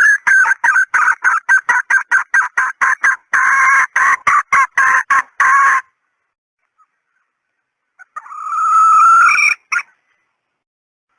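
Junglefowl hen calling, used as a decoy call to lure junglefowl: a fast run of short clucks, about five a second, for the first six seconds, then a pause and one longer drawn call about eight seconds in.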